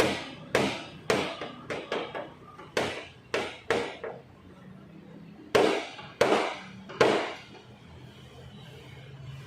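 An irregular run of sharp knocks, about a dozen in all: a quick cluster, a short pause, then three louder blows about halfway through. A faint steady low hum carries on after them.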